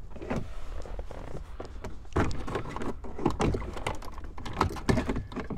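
Plastic console trim bezel and its clips clicking and knocking as the bezel is pried loose with a plastic pry tool: a run of irregular small clicks, with a few louder snaps about two, three and five seconds in.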